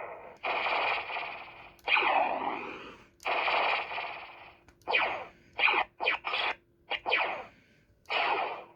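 Power Rangers Cosmic Fury Cosmic Morpher toy playing a rapid string of electronic sound effects through its speaker, about ten bursts, several with falling sweeps, with short clicks between some of them.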